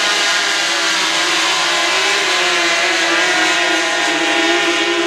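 A pack of O-500 class racing catamarans' two-stroke outboard engines running at full throttle, several engine whines overlapping and shifting slightly in pitch as the boats accelerate away from the start.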